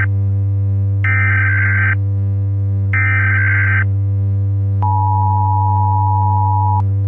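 Emergency Alert System SAME header: buzzy data bursts about a second long and a second apart, then, about a second after the last one, the two-tone EAS attention signal held for two seconds. A steady low hum runs underneath throughout.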